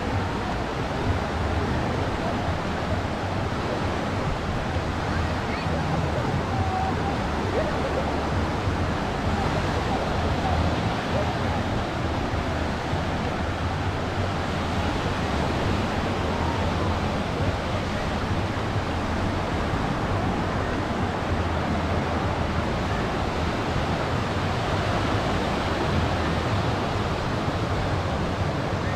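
Ocean surf washing steadily onto a sandy beach, an even, unbroken wash of breaking waves.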